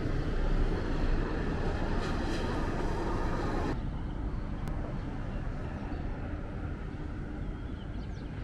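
Steady outdoor city ambience, a haze of distant road traffic noise, which changes abruptly at a cut about four seconds in. A few faint bird chirps come near the end.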